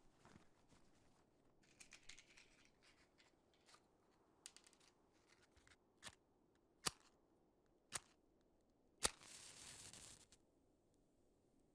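Quiet rummaging through a bag, then a series of sharp strikes about a second apart as a fire is lit. The last strike is followed by about a second of hissing as the flame catches.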